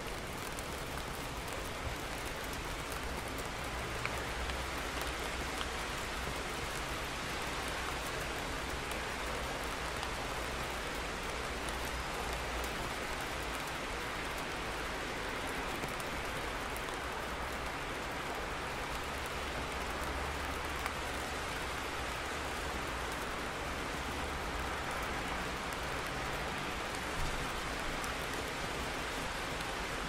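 Steady rain falling on hard surfaces, an even wash of patter with an occasional louder single drop.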